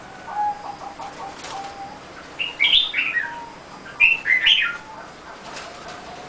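Zebra dove cooing in short, staccato notes, with two loud bursts of higher chirping from another small bird near the middle.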